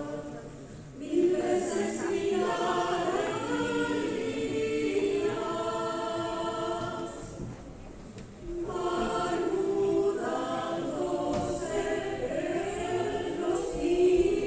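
A choir singing sustained, shifting chords, in two phrases with a short break about a second in and another around eight seconds.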